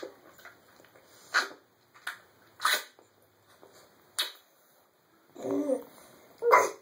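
A baby's short grunts and wet sucking noises, about half a dozen spread a second or so apart, as he mouths a wet washcloth.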